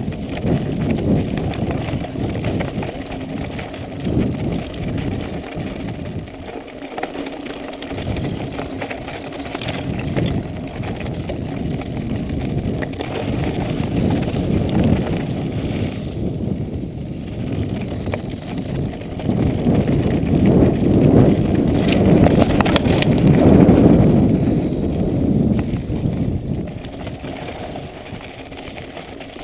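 Mountain bike riding fast over a rough, rutted dirt trail: tyres rumbling on the ground and the bike clattering over bumps, with wind rushing over the microphone. It is loudest about two-thirds of the way through.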